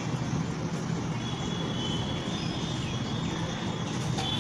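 Steady background hum and hiss, even throughout, with no distinct strokes or knocks standing out.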